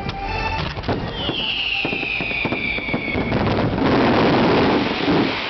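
Fireworks display: a quick run of sharp cracks, then a whistle that falls in pitch for about two seconds. A louder, steady rush of noise follows near the end.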